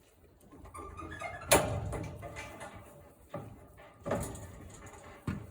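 A gate or door bangs shut about a second and a half in, ringing briefly, followed by a few smaller knocks and rattles.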